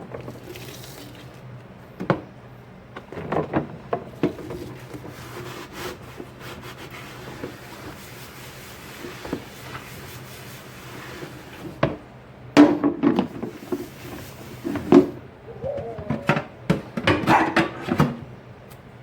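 Dishes being washed by hand: crockery and utensils clinking and knocking together, with rubbing and scrubbing between. The handling grows busier and louder in the last third.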